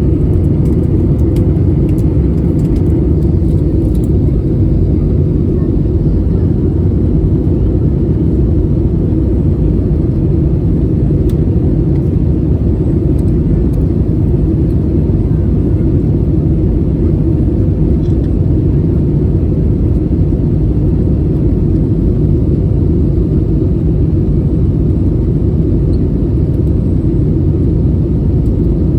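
Steady low rumble of cabin noise inside an Airbus A320neo airliner, even in level with no spool-up or change in pitch.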